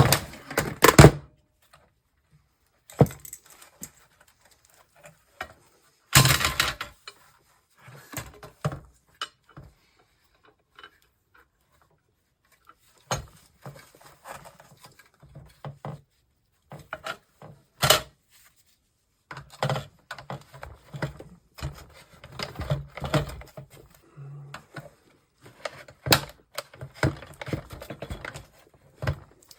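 Plastic monitor case being pried apart by hand: scattered clicks, knocks and sharp snaps of the plastic shell and its clips, with handling rattles between them, the loudest snaps about six seconds in and again near eighteen seconds.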